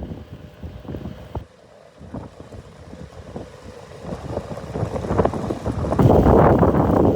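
Wind buffeting the microphone in irregular gusts. It drops to a brief lull about a second and a half in, then builds back up and turns loud near the end.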